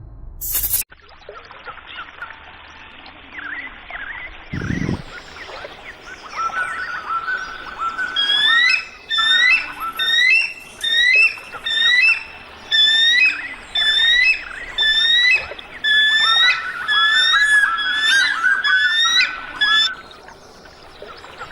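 A bird calling over and over with high, hooked chirping notes. The calls start scattered, then run as loud regular groups a little more than once a second until they stop about twenty seconds in. A faint steady hiss sits underneath, with one brief low thud about five seconds in.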